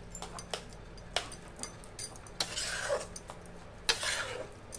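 Metal spatula stirring a thick curry in a kadhai: sharp clinks of the spatula against the pan, with two short stretches of scraping about halfway and near the end.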